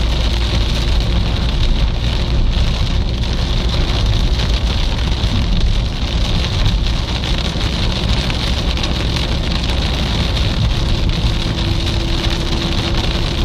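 Steady rumble of a moving vehicle heard from inside the cabin, with the hiss of heavy rain on the windows and body.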